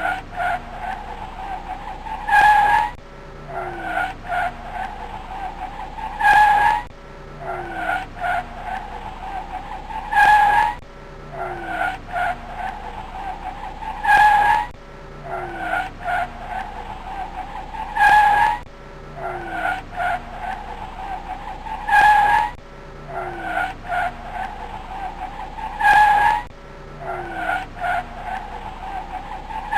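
Car tyres squealing in a short skid, with a lower engine note falling in pitch as the car goes by. The same few seconds repeat about every four seconds as a loop.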